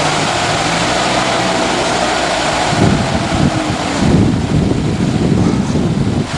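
Sideloader forklift engine and lift running while the truck sets a scrap car into the racking, with a steady whine for the first three seconds or so. Wind buffets the microphone throughout, in gusty rumbles from about three seconds in.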